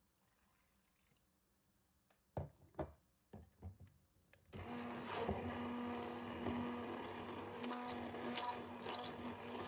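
A few knocks, then about halfway through an immersion stick blender starts and runs steadily, blending flour and water in a glass bowl into a frothy batter.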